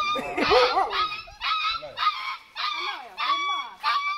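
Puppies crying in short, high-pitched whimpering yelps, about two a second, while they are being sprayed and washed with water.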